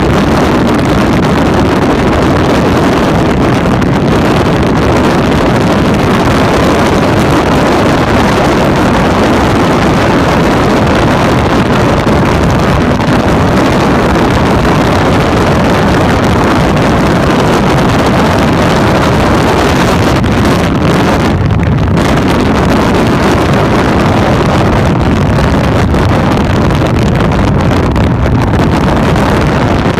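Motorcycle riding at highway speed: a steady, loud rush of wind buffeting the handlebar-mounted microphone over the running engine.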